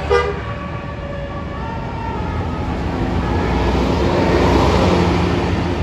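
A large tour bus passing close, its engine and tyre noise swelling to a peak about four to five seconds in, with a short horn blip right at the start.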